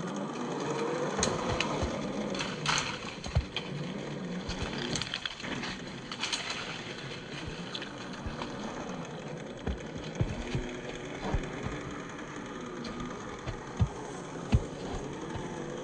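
Brushed 540 27T electric motor and gear drivetrain of a 1/10-scale Axial SCX10 III RC crawler whining, its pitch rising and falling with the throttle, with scattered sharp knocks and clicks.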